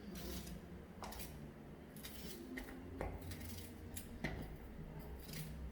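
Kitchen handling noises: three sharp clicks and knocks of utensils or a knife, about one, three and four seconds in, with short scraping rustles between them.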